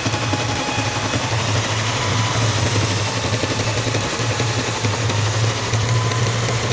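A workshop machine's motor running steadily, a low hum under an even hiss.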